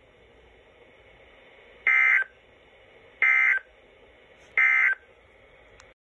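Three short data bursts of the NOAA Weather Radio SAME end-of-message signal, each about a third of a second long and a little over a second apart, heard through a Midland weather radio's speaker. They mark the end of the Required Weekly Test transmission.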